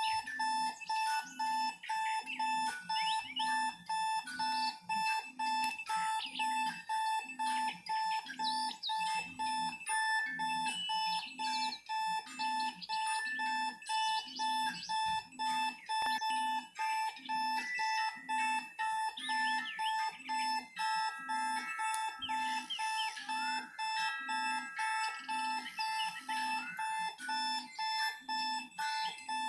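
Alarm-clock sounds layered together and going continuously: a steady high tone over a low beep pulsing a little faster than once a second, with warbling chirps on top.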